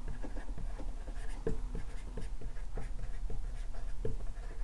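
Dry-erase marker writing on a whiteboard: a run of short, irregular strokes and squeaks as the words are written out.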